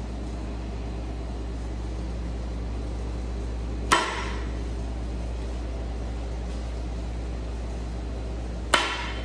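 Two sharp strikes of a dead-blow hammer on a steel stroker crankshaft sitting in its main bearings, the first on the rear flange end about four seconds in and the second on the nose near the end. The crank is being knocked fore and aft to seat the thrust bearing before end play is measured. A steady low hum runs beneath.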